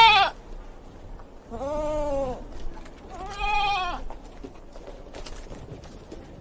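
Bleating from a goat or sheep: the end of one call at the start, then two more short calls about a second and a half apart, each rising and then falling in pitch.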